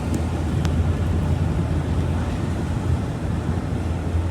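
Steady road and engine noise inside a moving vehicle's cab, a low hum under an even rush of tyre and wind noise, with a couple of faint ticks in the first second.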